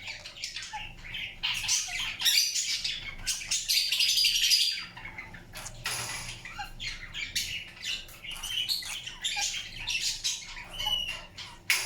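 Indian ringneck parakeet grinding its beak: a dry, scratchy rasping made of rapid clicks, coming in bouts, with short soft chirps in between.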